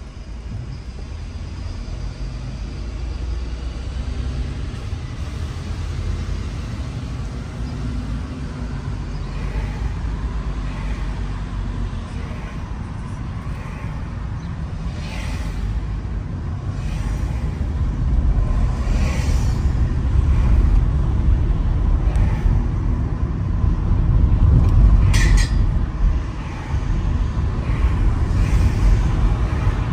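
Road noise of a car driving through city traffic: a steady low rumble of engine and tyres that grows louder about two-thirds of the way through, with a few short hisses from traffic and one sharper one near the end.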